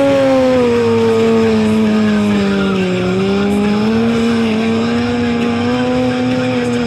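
Stunt motorcycle's engine held at high revs, its pitch sagging about halfway through and climbing back, with the rear tyre skidding on the asphalt.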